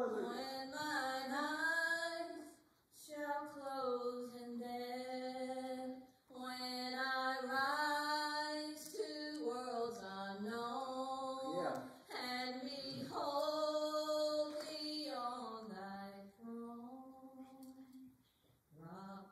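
A woman singing a slow worship song solo, holding long notes in phrases of a few seconds with short breath pauses between them.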